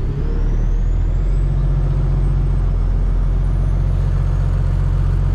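Cummins diesel engine of a Peterbilt 579 semi truck idling up as a forced DPF regeneration begins, heard from inside the cab. The engine speed rises over about the first second and then holds at a steady raised idle, with a high whine climbing slowly in pitch.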